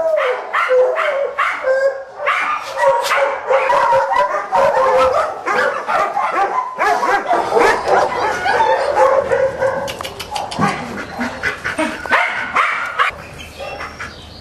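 Several dogs barking and yelping over one another without a break, with drawn-out whining tones in the first few seconds. The din eases off near the end.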